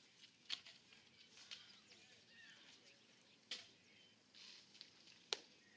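Near silence: faint open-air ambience with a few faint high chirps and three sharp knocks, about half a second, three and a half seconds and five seconds in, the last the loudest.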